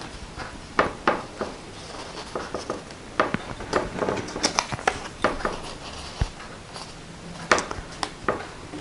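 Paper being handled on a tabletop: irregular rustles, slides and light taps as cut-out card pieces are tucked into a paper pocket.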